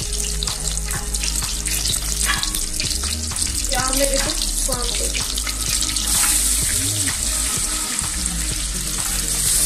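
Butter foaming and sizzling in a stainless steel pot. The hiss grows louder about six seconds in, as chopped onion goes into the hot fat and is stirred with a wooden spoon.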